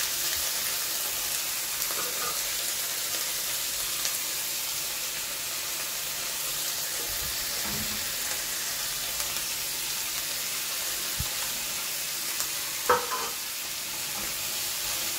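Canned tuna and sliced onions sizzling in hot oil in a frying pan, a steady hiss. A single sharp knock near the end.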